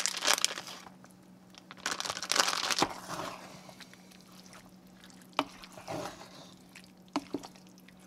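Wooden spoon stirring chopped ham into a thick cheese sauce of broccoli and cauliflower in a frying pan: wet squelching and scraping, with a few short knocks of the spoon against the pan in the second half. A crinkle of plastic packaging comes at the very start.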